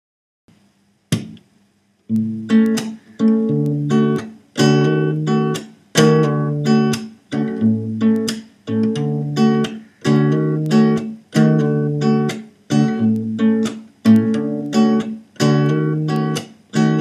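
Acoustic guitar strummed in a steady rhythm as background music: one strum about a second in, then regular chords from about two seconds on.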